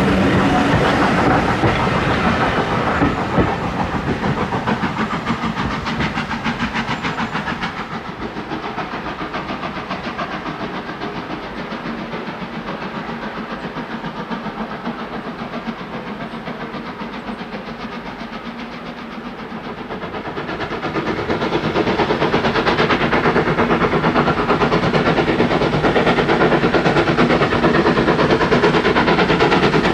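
Taff Vale Railway 0-6-2 tank locomotive No. 85 working a passenger train under steam, its exhaust beating rapidly, with the coach wheels clattering past at first. The sound falls back to a more distant chuffing through the middle and grows louder again near the end as the engine comes closer.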